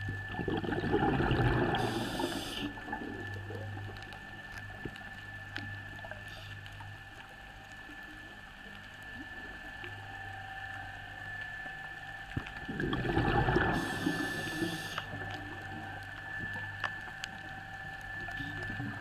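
Scuba diver's regulator breathing underwater: two exhalations about twelve seconds apart, each a loud surge of bubbling with a short hiss, over a steady faint whine.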